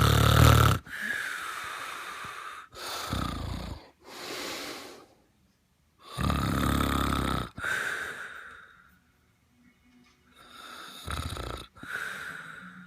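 Snoring: four loud snores in slow, uneven rhythm, each followed by a softer breathy exhale.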